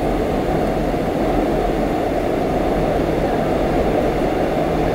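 A Seoul Metro Line 4 subway train running, heard from inside the car: a steady, even noise, mostly low in pitch.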